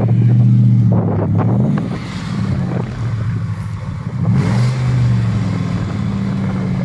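Off-road vehicle engine running under load, revving up briefly about a second and a half in and again near the middle, with a few short knocks early on.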